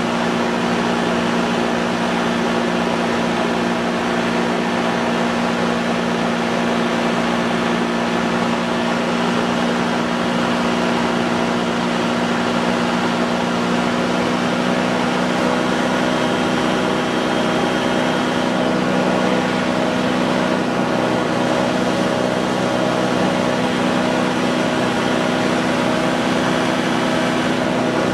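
Light aircraft's engine running steadily in cruise, heard on board: a constant drone with an even hiss of air over it.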